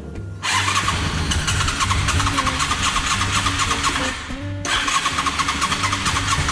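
Honda motorcycle's electric starter cranking the engine in two long spells with a short break between them, a fast even chatter. It is the bike's random no-start fault, whose cause the rider does not know.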